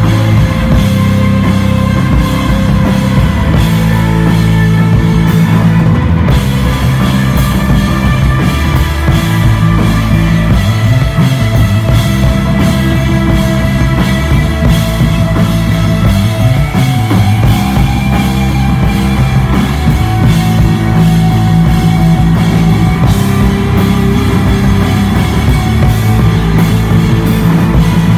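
Live desert rock band playing loud, with a drum kit and electric guitar, sounding without a break and heavy in the low end.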